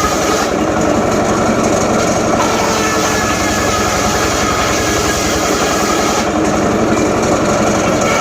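Homemade circular saw running and ripping teak, a loud continuous machine noise over a steady low throb, with the higher part of the sound dropping away twice, about half a second in and again near the end.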